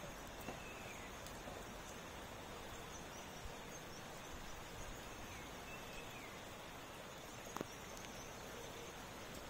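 Faint, steady hiss of rain falling, with a few faint high chirps from birds and one short click near the end.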